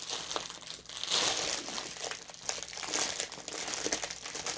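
Packaging crinkling and rustling in irregular bursts as it is handled and worked open.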